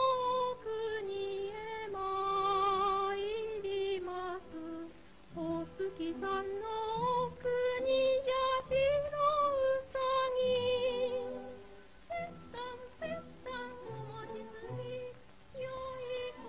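Music from a 1940s film soundtrack, dull and thin at the top: a melody of held, wavering notes with vibrato over a light accompaniment.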